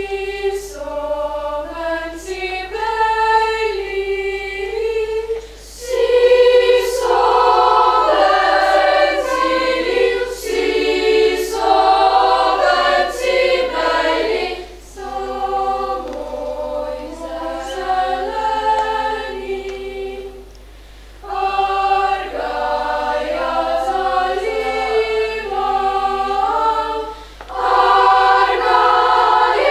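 Children's youth choir singing a Slovenian folk song in several voice parts, in phrases with short breaks between them. The opening phrase is softer, and the full choir comes in louder about six seconds in.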